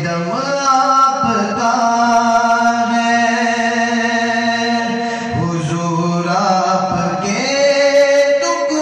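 A man singing a naat (Urdu devotional song) solo, holding long ornamented notes that slide between pitches. Short breaks between phrases come about a second in, and again around five and seven seconds in.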